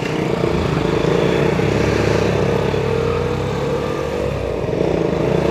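Motorcycle engines running steadily as a group of sport bikes rides off, with wind and road noise from the moving bike carrying the microphone. The engine pitch rises slightly near the end as the bike speeds up.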